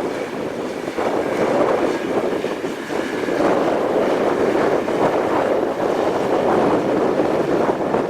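A vehicle engine running under heavy wind that buffets the microphone, getting louder about three and a half seconds in.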